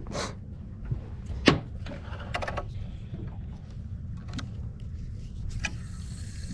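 A few sharp knocks on the boat, the loudest about a second and a half in, over a steady low rumble.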